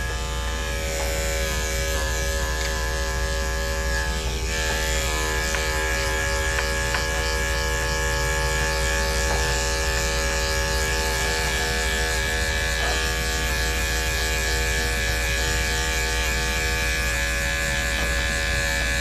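Electric dog-grooming clippers running with a steady buzz while trimming a dog's coat.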